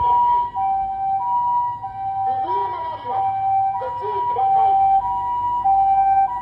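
Japanese ambulance's electronic two-tone siren, the "pee-po" call, switching back and forth between a higher and a lower note about every half second.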